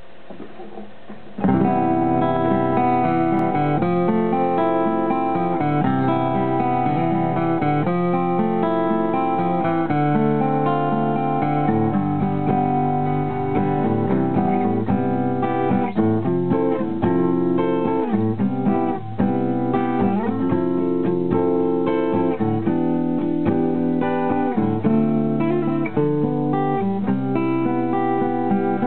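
A 1975–76 Tokai Cat's Eyes steel-string acoustic guitar played solo, chords strummed and picked over the soundhole, starting about a second and a half in.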